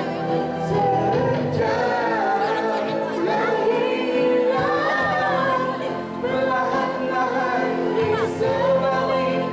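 A woman and a man singing a Malay song as a duet into handheld microphones, with a backing music track.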